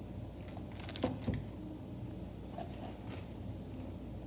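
Handling plastic slime tubs: two sharp knocks about a second in, the first with a short falling squeak, then a few faint knocks and rustles as a tub is set down and another taken from the box, over a steady low hum.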